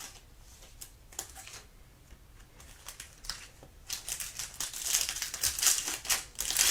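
Trading cards and their plastic and foil packaging being handled during a box break: a few light clicks and taps, then steady crinkling of packaging from about four seconds in that grows louder toward the end.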